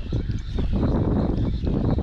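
Wind buffeting the microphone and water slapping against the hull of a small boat, with irregular soft knocks, while a spinning reel is cranked to retrieve a lure.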